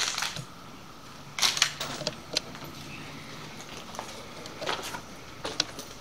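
Footsteps and scuffs on a gritty concrete floor: a handful of short, sharp crunches and clicks, bunched about a second and a half in and again near the end.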